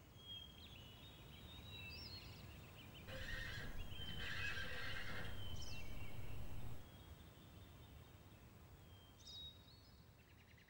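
A horse whinnies about three seconds in, against faint birds chirping. The louder stretch stops suddenly about seven seconds in, leaving only the odd chirp.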